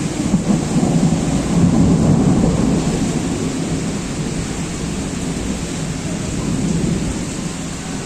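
Thunder rumbling over heavy rain. The rumble is strongest in the first three seconds, then fades into a steady rain hiss.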